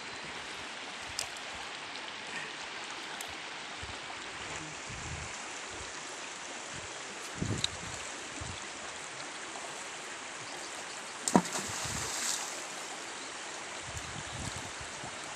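Shallow river running steadily over rocks, with a couple of brief louder bumps, one about halfway through and another a few seconds later.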